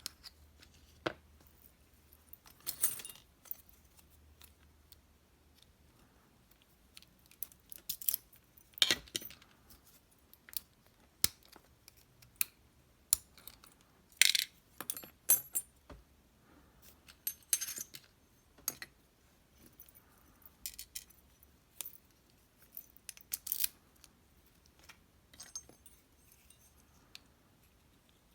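Small metal parts of an M&C Condor lock clicking and clinking as the lock is taken apart. Short, sharp clicks come at irregular intervals throughout, bunched more thickly around the middle.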